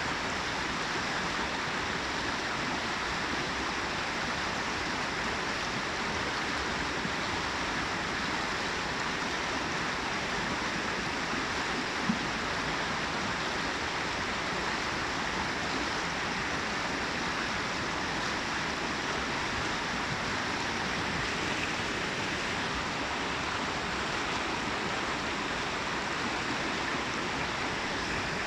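Brook water cascading and babbling over rocks, a steady rushing hiss. One short click about halfway through.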